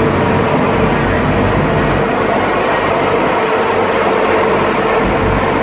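Engine of an amphibious Duck tour boat running steadily under way, a constant drone with a steady hum, heard from the driver's seat along with the rush of wind and water.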